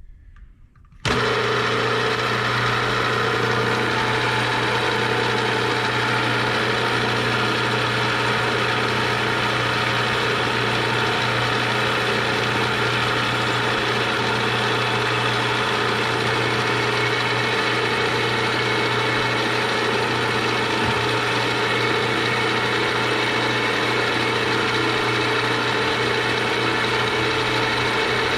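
Milling machine running steadily at about 850 rpm with a 3/16-inch end mill, starting abruptly about a second in.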